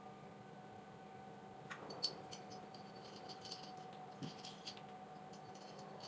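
Small metal kit parts being handled and fitted by hand: faint, scattered light clicks and taps, a few sharper ones near the middle, over a low steady hum.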